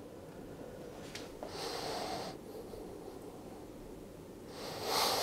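Two breaths over quiet room tone: a soft one about a second and a half in and a louder one near the end.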